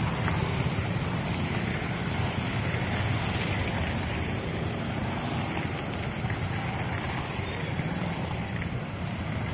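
Many motorcycles and scooters running along together, a steady drone of small engines mixed with wind buffeting the microphone.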